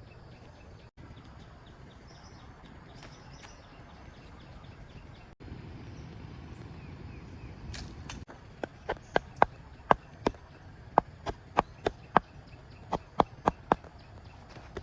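A steady low outdoor background, then from about eight seconds in a run of sharp knocks, roughly one or two a second and irregularly spaced.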